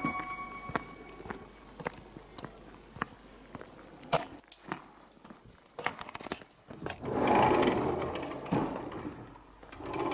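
Footsteps and small knocks, with one sharp click about four seconds in. About seven seconds in comes a louder rattling rush lasting over a second, as a glass sliding entrance door is opened, and a second one starts near the end as the inner door is reached.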